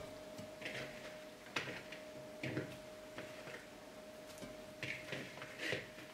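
Soft, scattered knocks and rustles of halved plums being handled and settled in a metal pot, over a faint steady tone.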